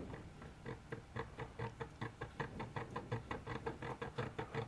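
Round needle file rasping back and forth in a pivot hole of a brass clock plate, in quick even strokes, about four a second. The worn hole is being filed over to move its centre to the right meshing distance before it is bushed.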